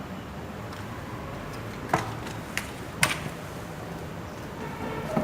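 Hand work on a DC motor armature being rewound, as coil sides are worked into the slots: three sharp clicks and taps about two to three seconds in.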